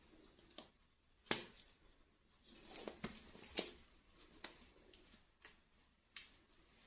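Hands handling plastic doll toys and packaging: light sharp clicks and taps, about seven spread irregularly, with brief soft rustling between them.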